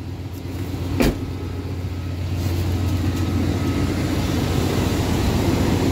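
Car engine idling steadily, growing gradually louder, with one sharp click about a second in.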